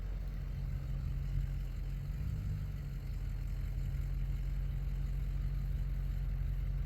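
An engine running steadily at an even, low speed, with a constant low hum.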